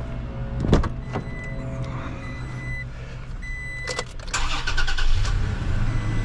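Toyota Tacoma engine cranked and catching about four seconds in, then settling into a steady idle: the first start after an oil change, with the crankcase freshly filled. Before it come a single knock and a few short chime tones from the truck.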